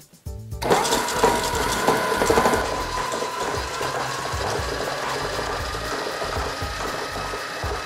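Electric stand mixer switched on about a second in, its motor and gears whirring as the beater creams a thick mix of butter, sugar, peanut butter and eggs. It is louder for the first couple of seconds, then runs steadily.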